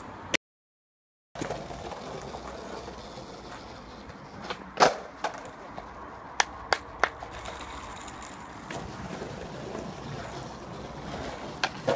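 Skateboard wheels rolling on paving, with sharp clacks of the board striking the ground: the loudest about five seconds in, three quick ones between six and seven seconds, and another pair near the end. The sound drops out completely for about a second near the start.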